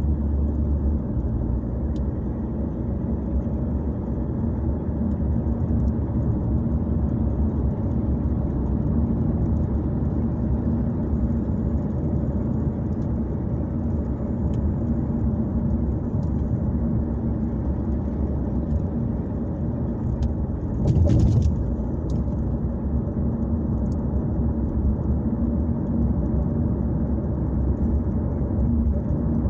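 Steady low engine and tyre rumble heard inside a car's cabin while driving, with one brief louder burst about two-thirds of the way through.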